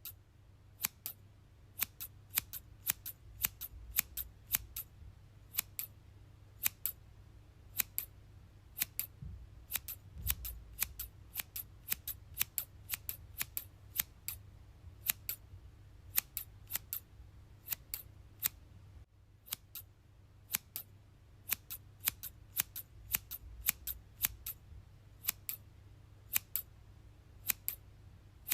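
Scissors snipping over and over: sharp, brief metallic snips, many in quick pairs, at roughly one to two a second, over a faint low background hum.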